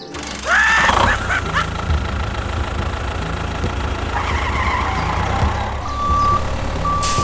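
Steady low engine rumble of a small machine, with warbling glides in pitch about a second in and two short, even beeps near the end.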